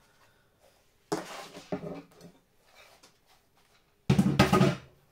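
Kitchenware being handled: two clattering bursts, one about a second in and a louder one about four seconds in.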